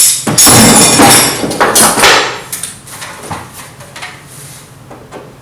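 Hand tools being handled: loud clattering and knocks of tools being moved and set down for the first two seconds or so, then quieter scattered handling noises.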